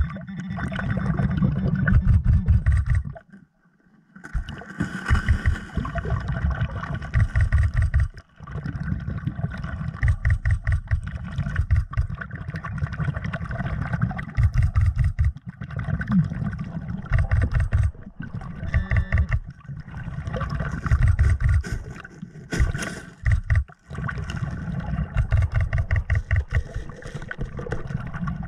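Muffled underwater noise heard while diving: a loud, pulsing low rumble of water moving around the submerged camera, with a steady higher hum over it. The sound cuts out briefly a few times.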